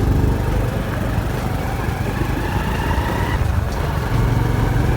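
A small engine running steadily as the vehicle it drives moves along.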